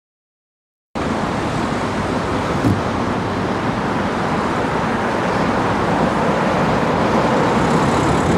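Steady road traffic noise from cars around a roundabout. It starts suddenly about a second in, after a moment of silence, with a single short knock soon after.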